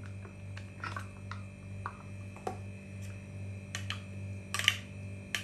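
Faint scattered clicks and soft scrapes of a metal spoon stirring thick chocolate pudding in a bowl, with a plastic dessert cup being squeezed out at the start, over a steady low hum.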